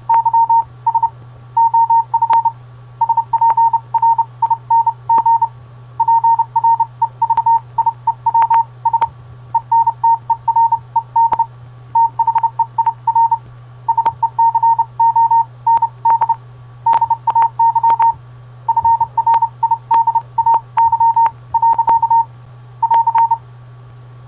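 Morse code sounded as a single steady-pitched beep, keyed in short and long tones grouped into characters with gaps between them, stopping near the end; the pen-and-paper writing alongside fits the code being copied by hand. A steady low hum runs underneath.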